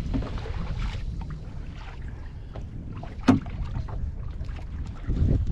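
Wind rumbling on the microphone and water noise around a small open fishing boat at sea, with scattered light ticks and one sharp knock about three seconds in.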